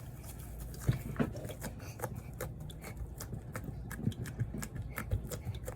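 Soft homemade slime being kneaded and mixed by hand, making irregular wet squelches and sticky popping clicks.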